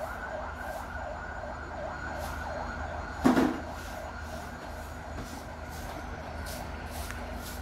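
Steady city street traffic noise with a wavering hum, and one loud thump a little over three seconds in.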